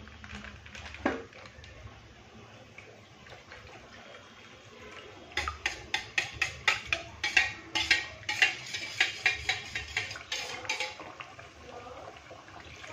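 Steel spoon beating curd in a stainless steel bowl, clinking against the bowl in quick strokes, about four a second, from about five seconds in for some six seconds. A single knock comes about a second in.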